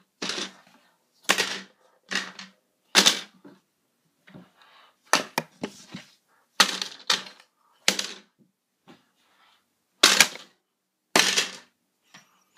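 A phone being slammed repeatedly against plastic Lego bricks: about a dozen sharp knocks and clatters, some in quick pairs, roughly one a second with two short pauses, as bricks rattle and fall.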